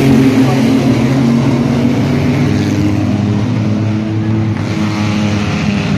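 Engines of a pack of mini-truck race trucks running at racing speed past the grandstand, several engine notes overlapping. The sound eases off a little about four seconds in.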